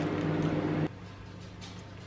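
A kitchen appliance humming steadily with a hiss over it, cutting off abruptly about a second in and leaving a fainter low hum.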